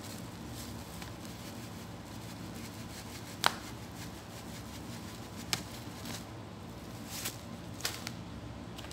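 Plastic bag of desiccated coconut being tipped and poured into a wooden bowl: light rustling with a few sharp crinkling clicks, the loudest about three and a half seconds in, over a steady low hum.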